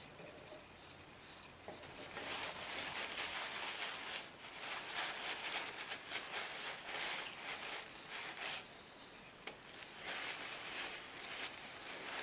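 Paper towel rustling and crinkling as it is crumpled and rubbed over a small wooden ornament, starting about two seconds in and going on in irregular crackly bursts.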